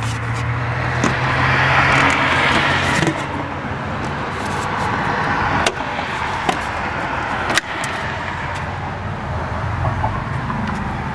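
Ford SVT Lightning's supercharged 5.4-litre V8 running at idle, a steady low hum, with a few sharp clicks about six and seven and a half seconds in.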